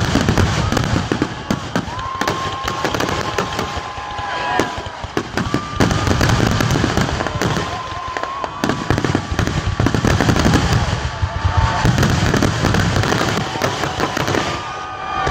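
Fireworks finale barrage: many aerial shells bursting and crackling in rapid, overlapping succession with no gap between reports.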